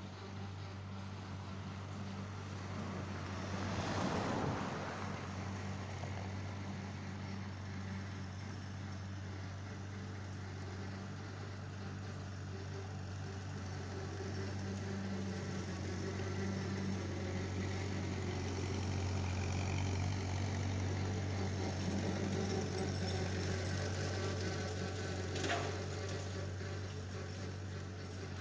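Massey-Harris 22 tractor's four-cylinder engine running steadily at a distance, growing a little louder in the second half. A brief rushing noise about four seconds in and a sharp click near the end.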